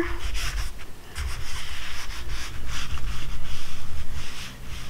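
A hand rubbing and smoothing a glued patch down onto shelter fabric, a run of rustling, scraping strokes, pressing the patch flat from the seam outward.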